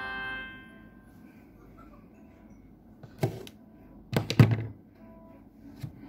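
The tail of a Samsung SGH-X450 flip phone's shutdown melody fades out within the first half second. Then a single sharp knock about three seconds in, and a louder quick cluster of knocks just after four seconds.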